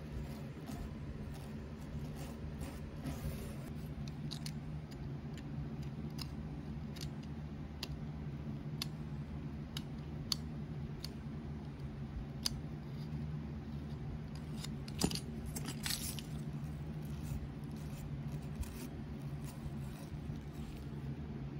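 Small wire brush scrubbing stripper residue out of the grooves of wooden cabinet molding. The bristles scratch and tick irregularly, with a louder scratch about fifteen seconds in. A steady low hum runs underneath.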